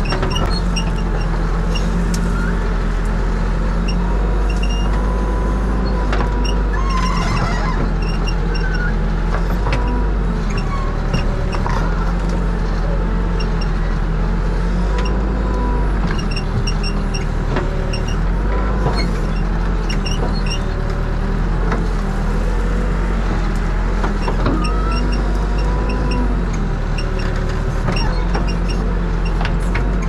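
A HEPCO HLB95B backhoe loader's diesel engine runs steadily under load while the backhoe digs. Its hydraulic whine rises and falls as the boom and bucket move, and there are a few short knocks along the way.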